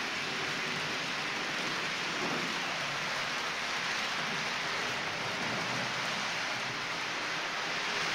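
H0-scale model freight train of VTG tank wagons rolling along the track: a steady, rain-like rolling noise of many small metal wheels on the rails.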